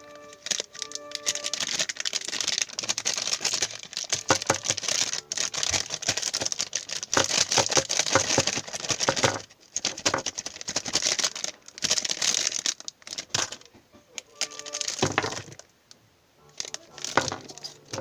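Foil blind packets being torn open and crumpled by hand: dense plastic crinkling and tearing, continuous for about the first nine seconds, then in shorter bursts with pauses.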